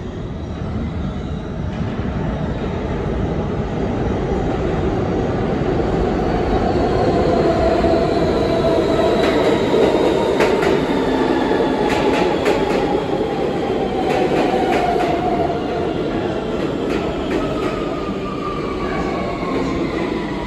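R160 subway train pulling into an underground station and braking, its propulsion motors whining in tones that fall steadily in pitch as it slows. The rumble grows loudest about halfway through as the cars pass, with a run of wheel clicks over the rail joints.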